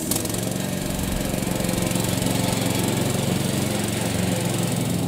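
Ride-on lawn mower's engine running steadily, a little louder over the first couple of seconds as the mower drives past close by.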